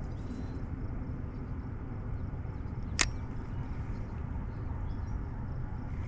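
Steady low outdoor background noise, with one sharp click about three seconds in.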